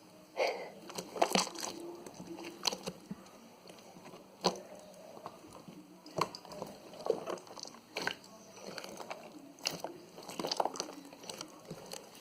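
Gelelé toy jelly, worked with toothpaste, being squished and kneaded by hand: irregular wet squelches and sticky clicking pops.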